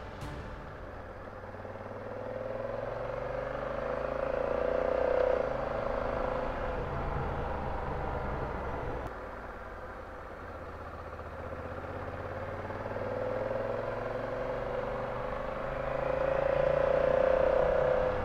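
Honda Africa Twin motorcycle being ridden, engine running under road and wind noise. The engine note climbs and grows louder twice, then falls away suddenly, about five seconds in and again near the end.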